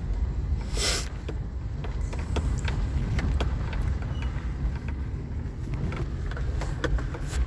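Car driving slowly on a rough road, heard from inside the cabin: a steady low rumble of engine and tyres with frequent small clicks and rattles, and a short hiss about a second in.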